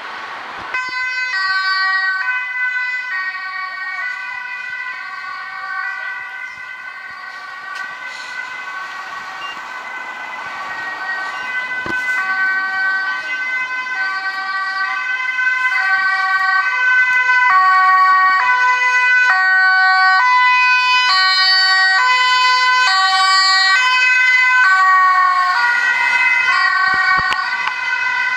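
Dutch ambulance's two-tone siren switching steadily between a high and a low pitch. It grows louder over the middle and eases off a little near the end as the vehicle passes.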